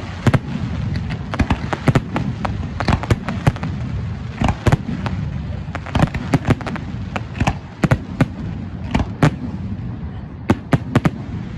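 Aerial fireworks display: shells bursting overhead in a rapid, irregular string of bangs and crackling pops, over a continuous low rumble.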